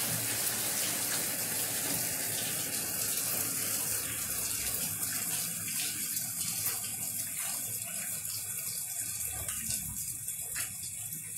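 Heavy rain falling steadily, a dense rushing water noise with scattered sharp drip taps.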